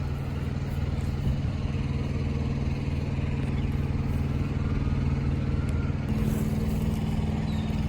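Steady low engine hum running throughout, its tone shifting slightly about six seconds in.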